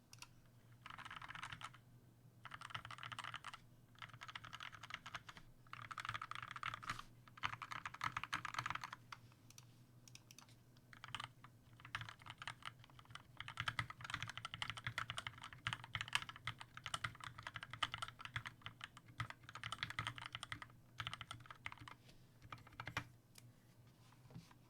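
Skyloong GK61 mechanical keyboard with lubed Gateron Yellow linear switches and PBT keycaps being typed on in fast bursts of keystrokes with short pauses between them. The keystrokes thin out to scattered presses near the end.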